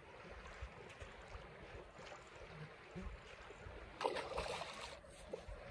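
Steady rush of river water flowing past, with wind buffeting the microphone in low rumbles. A brief, louder burst of noise comes about four seconds in.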